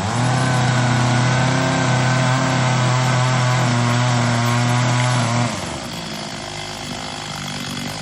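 Chainsaw running at full throttle at a steady pitch while cutting through a tree trunk on the felling back cut. About five and a half seconds in it drops off to a much quieter, steady sound.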